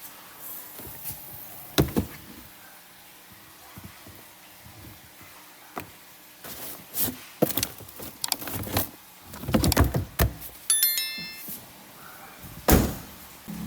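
Irregular knocks, thunks and clicks, busiest in the second half, with a quick run of high stepped tones about eleven seconds in and one loud thunk near the end.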